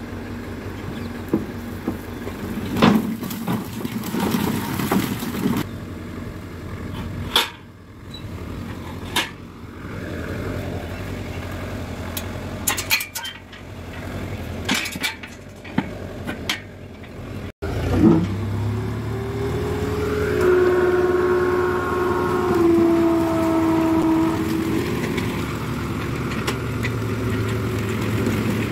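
Sharp metal clanks and knocks as the tailgate locks and chains of a steel tipper trailer are worked open. About halfway through, a tractor engine takes over, running steadily with a pitched whine as the hydraulics raise the trailer bed to tip it.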